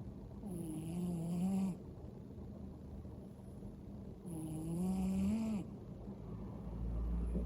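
A large male cat snoring in his sleep: two drawn-out snores about four seconds apart, each with a low buzzing pitch. A low rumble comes in near the end.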